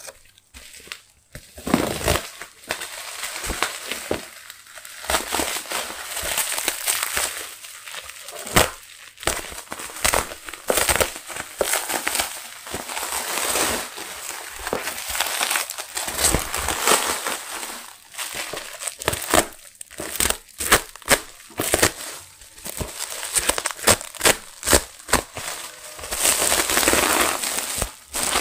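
Plastic bubble wrap crinkling and crackling as it is handled, pulled and torn away from a cardboard shipping box, with frequent sharp irregular cracks.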